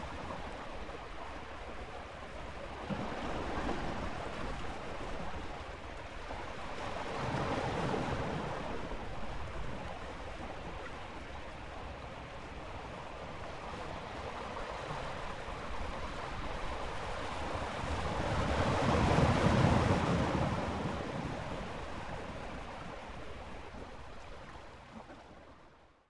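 Ocean waves breaking and washing on a shore: a rushing sound that swells and ebbs in slow surges, the loudest about two-thirds of the way through, then fades out at the very end.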